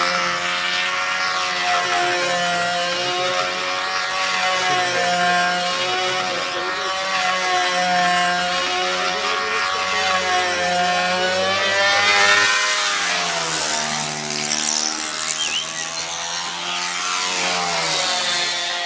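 Engine of a control-line aerobatic (F2B) model aircraft running in flight. Its pitch rises and falls again and again as it circles and manoeuvres, with a deeper drop and climb about two-thirds of the way through.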